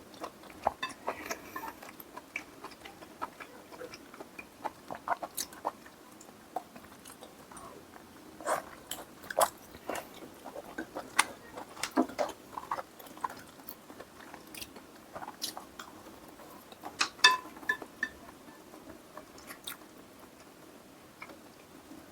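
Close-miked chewing and biting of braised spicy chicken and daechang (beef large intestine), heard as scattered wet clicks and smacks at an uneven pace, a few of them louder.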